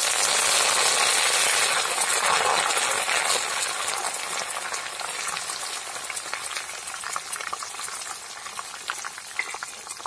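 Fresh curry leaves frying in hot oil with dried red chillies in a steel kadai. A loud sizzle that fades steadily as the leaves wilt, with many small crackling pops, while a metal spatula stirs them.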